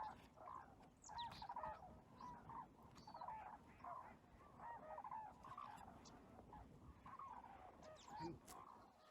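A flock of cranes calling: many short calls, one after another and overlapping.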